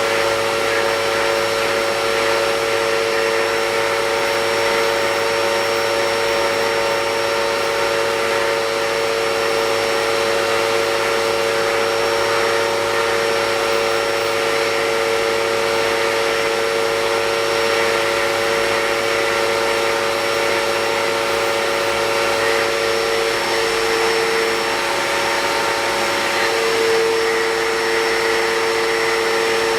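Vacuum cleaner running steadily, a constant hum with a high whine over the rush of air, being used to vacuum a dog's coat. The main tone wavers briefly about two-thirds of the way through, then steadies again.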